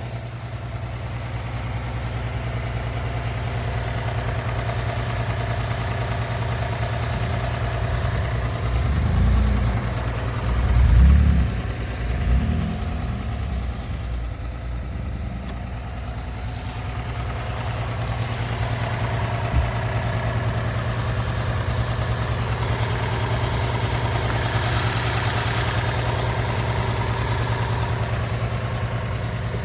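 Toyota 2GR-FSE 3.5-litre V6 engine idling steadily, with a knock that the owner is asking the cause of. A few louder low surges come about a third of the way through.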